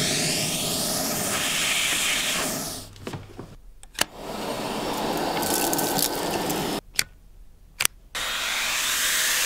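Dyson vacuum cleaner running, its suction noise cutting in and out in sections. Sharp single clicks fall in the gaps, about four seconds in and twice around seven to eight seconds, as the wand and tools click into place.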